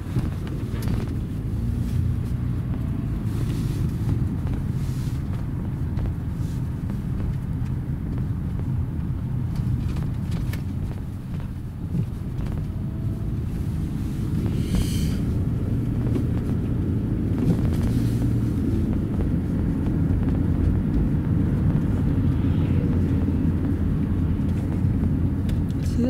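Steady engine and tyre rumble of a moving car, heard from inside its cabin.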